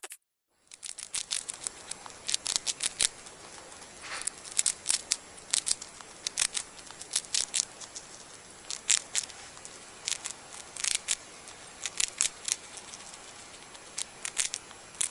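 A mouse eating: irregular small crisp crunching clicks, often in quick clusters, over a steady faint hiss, starting about half a second in.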